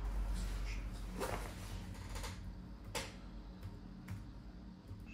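Laptop keyboard keys pressed a few times: separate sharp clicks over a low steady hum.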